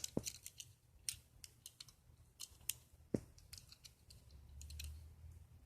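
Faint, scattered clicks and snips of a Hot Wheels blister pack and its cardboard card being handled and opened, with a sharper click a little past halfway.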